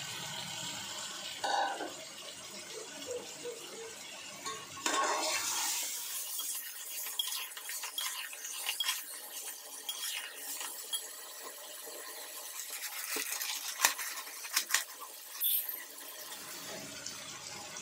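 Metal slotted spoon stirring chicken pieces and spice masala in an aluminium cooking pot, scraping and clinking against the pot's sides, with a cluster of sharper clinks about three-quarters of the way through.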